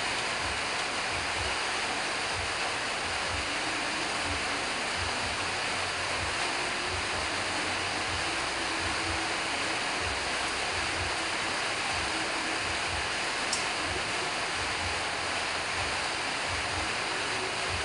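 A steady, even rushing noise, with a single faint click about thirteen seconds in.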